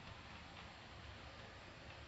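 Near silence: faint hiss and low hum, with a few light ticks.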